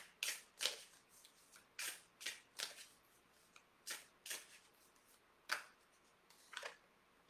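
A deck of large oracle cards being shuffled by hand: about nine or ten short, irregular swishing strokes of the cards with quiet pauses between them.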